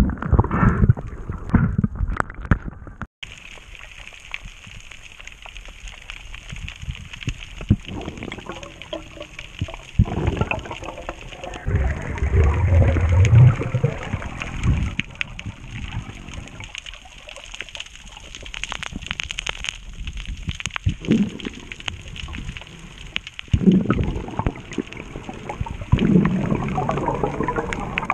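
Underwater sound through a diving camera: a muffled wash of water with a steady hiss, broken now and then by bursts of gurgling bubbles, the loudest about halfway through.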